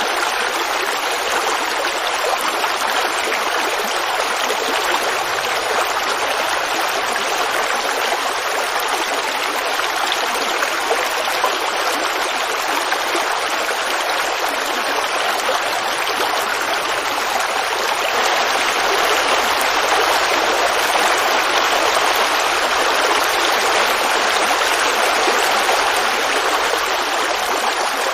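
Creek water flowing and babbling over rocks in a steady rush, a little louder for several seconds past the middle.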